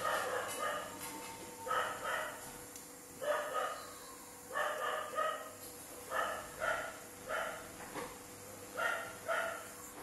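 A dog barking repeatedly, a short bark or a quick pair of barks about every second and a half.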